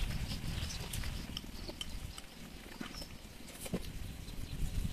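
Eating sounds at a meal: scattered light clicks of chopsticks and spoons against bowls, over a low steady rumble.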